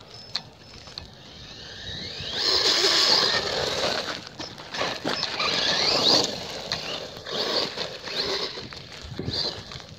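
Hosim 2845 1/16-scale brushless RC car at full throttle: a high whine from the motor and drivetrain rises in pitch as it takes off about two seconds in, then runs loud for several seconds, its pitch rising and falling with the throttle, fading as the car drives off.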